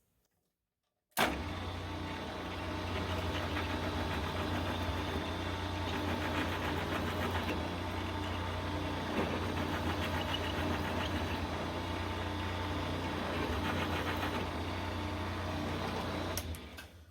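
Milling machine running steadily with a strong low hum, starting suddenly about a second in and stopping abruptly near the end.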